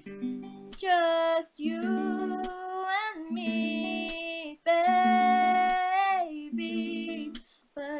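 A girl singing a slow pop ballad in long held phrases over guitar accompaniment, with a brief break between phrases about halfway through.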